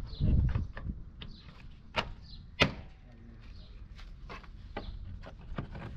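Sharp plastic clicks and knocks as a honeycomb grille insert is pushed into and worked back out of a truck's plastic front bumper, the loudest click about two and a half seconds in. A brief low rumble at the very start.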